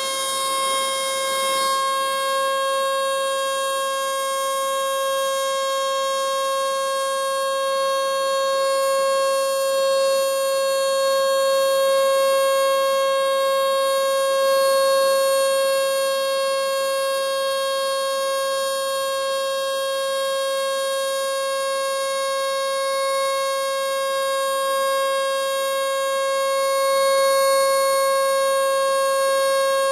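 Model 2 outdoor electric siren, built around 1911 and wired for 220 V, sounding a steady alert signal. It is one unbroken wail held at a constant pitch, with small swells in loudness.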